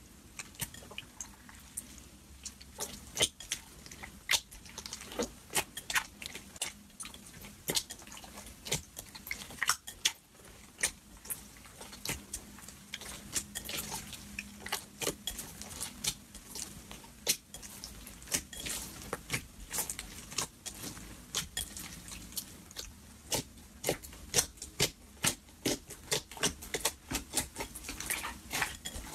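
Slime being stretched, folded and kneaded by hand: an irregular stream of sticky clicks and pops, several a second, some of them sharp.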